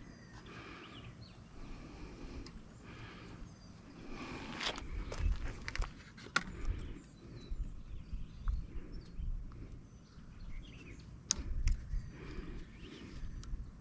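Quiet hand-work at a small engine's carburetor fuel line: a few light clicks and knocks amid soft handling rustle, with birds chirping faintly in the background.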